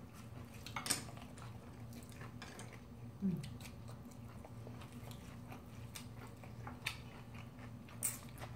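Two people eating bibimbap: chewing and mouth sounds with scattered small clicks and taps of chopsticks and a spoon, over a low steady hum. A short low sound about three seconds in.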